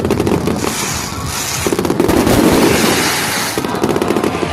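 Fireworks going off in rapid succession, a dense, continuous crackle of many quick bangs.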